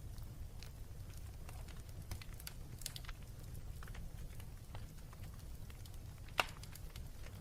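Wood fire crackling in a fireplace: scattered small pops and snaps, with one louder pop about six seconds in, over a steady low rumble.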